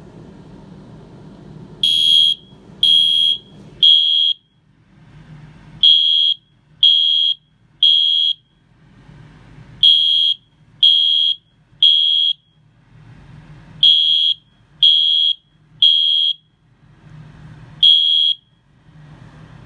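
Wheelock MIZ fire alarm mini horn sounding in the temporal-3 evacuation code: loud, high-pitched blasts in groups of three, about a second apart with a longer pause between groups. Four full groups sound, then a single blast near the end before it stops.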